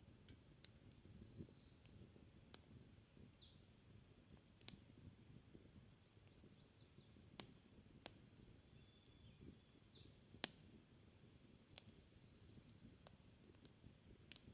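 Quiet campfire crackling: wood popping with scattered sharp snaps, the loudest about ten seconds in, over a low steady hiss. A bird sings twice in the background, each time a short high buzzy phrase ending in a trill.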